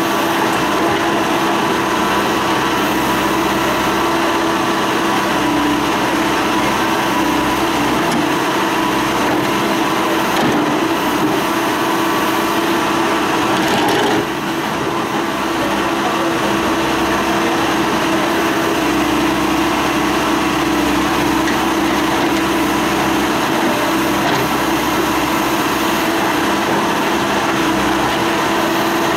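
Caterpillar backhoe loader's diesel engine running steadily under load while it digs.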